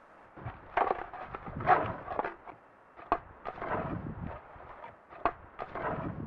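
Bull moose raking spruce brush with its antlers: bursts of rustling branches broken by sharp woody cracks and snaps, half a dozen or so at uneven intervals. This raking is a bull's way of saying it is ready to fight.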